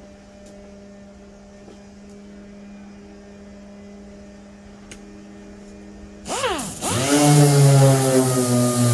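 A steady low hum, then about six seconds in a pneumatic dual-action sander starts up loud: a hiss with a whine that dips sharply twice, then settles and sags slowly in pitch.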